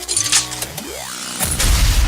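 Cartoon-style sound effects over background music: a sliding pitch glide that rises and falls, then a loud low rumbling, crash-like noise from about one and a half seconds in.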